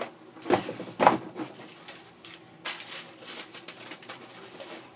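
Reptile-kit items and their packaging being handled: two knocks about half a second apart, then light clicking and rustling.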